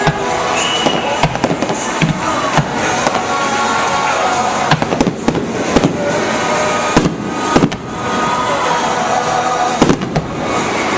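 Fireworks display going off in a steady stream of sharp bangs and crackles, with music playing underneath.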